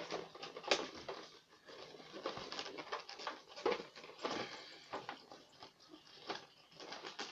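Inflated latex modelling balloons squeaking and rubbing against each other and the hands as they are twisted and bent into shape, in short, irregular squeaks and rubs.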